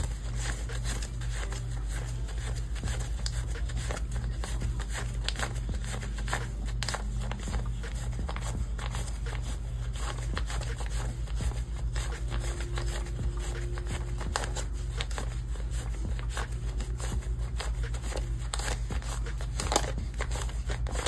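Paper dollar bills rustling and flicking as they are counted off one by one by hand, many quick crisp paper sounds, over a steady low hum.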